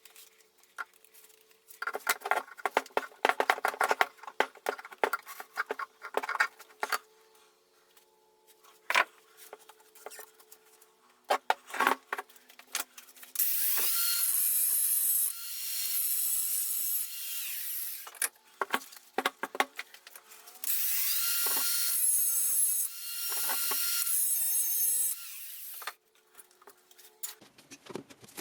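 A power tool runs in two steady bursts of about four seconds each, between scattered clicks, taps and scraping as parts are handled.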